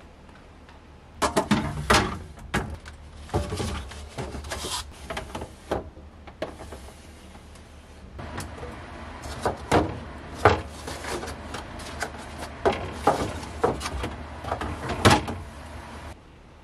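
Refrigerator door opened and a clear plastic pull-out tray drawer inside slid out and pushed back in. The handling makes a busy run of sharp plastic clicks and knocks, starting about a second in.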